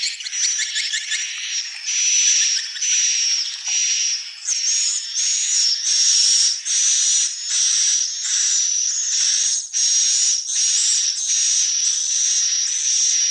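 Swiftlets calling: an unbroken string of buzzy, high-pitched chirps, each with a steady whistle-like tone, repeating a little more than once a second.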